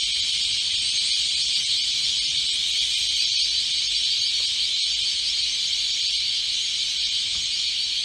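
A huge flock of white-faced whistling ducks calling in flight overhead, countless high whistles merging into one steady, shrill chorus.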